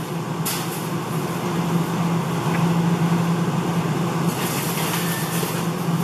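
Steady low mechanical hum over a haze of background noise, with a short click about half a second in.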